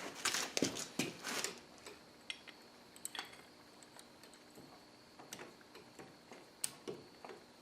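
A wrench tightening the bolt on a cam bearing installer tool: a run of metallic clicks and scrapes in the first second and a half, then scattered light ticks of metal on metal.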